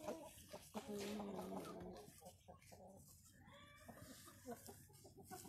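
Light Brahma chickens clucking, with a drawn-out wavering call in the first two seconds and fainter short calls after it.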